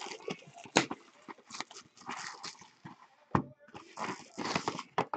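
Foil card-pack wrappers crinkling and a cardboard hobby box being handled, with a couple of sharp clicks or taps among the rustling.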